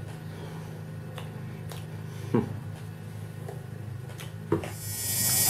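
Quiet room with a steady low hum, a few faint clicks and small handling noises, and two brief short sounds about two and a half and four and a half seconds in.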